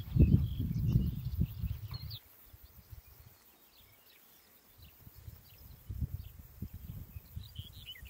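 Wind buffeting the microphone in gusts, dying away about two seconds in and picking up again near six seconds, with small birds chirping now and then in the pasture.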